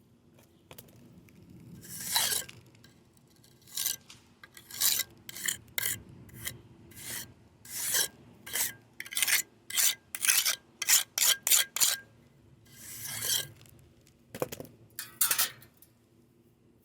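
Repeated scraping strokes of a hand tool across a fresh concrete patch, as the surface is worked and feathered. There are about twenty strokes of uneven length, coming quickest in quick back-and-forth passes just past the middle.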